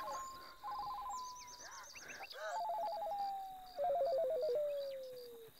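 Mobile phone ringtone: short electronic bursts that warble rapidly between two pitches, each trailing off in a falling pitch glide that sinks lower toward the end. Faint regular insect chirping runs behind it.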